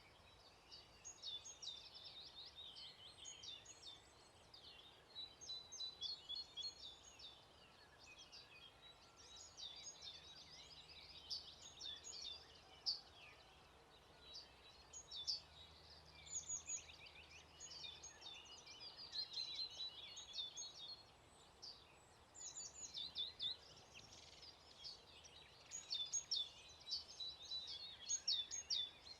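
Several songbirds singing at once, short phrases of quick high notes overlapping one another, faint.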